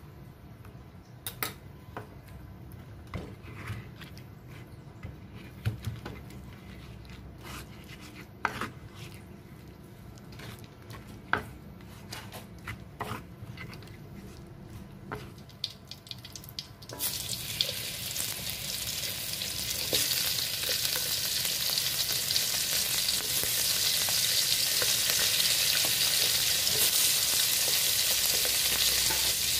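Scattered clicks and knocks of a stone pestle working sambal in a clay mortar (cobek and ulekan). About halfway through it cuts to salted mackerel (ikan peda) frying in oil in an aluminium wok, a steady loud sizzle that grows louder a few seconds later.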